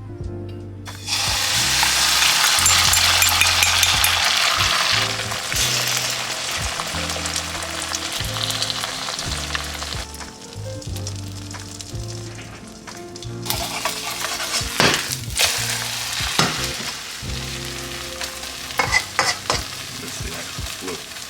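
Beaten egg with cha om frying in hot oil in a wok: a loud sizzle bursts in about a second in and slowly dies down, then surges again about two thirds of the way through, with a few sharp clinks of a utensil against the wok near the end.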